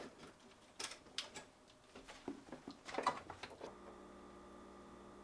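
Faint clicks and taps of plastic parts being handled as a refrigerator's freezer evaporator cover is fitted and its electrical connector pushed together. A faint steady hum sets in a little past halfway.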